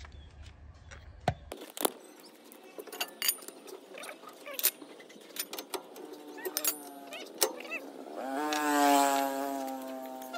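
Metal clinks and knocks as the rear hub nut is spun off with a cross wrench and the hub assembly is pulled off and set down. Over the last couple of seconds a loud, steady humming tone swells and fades.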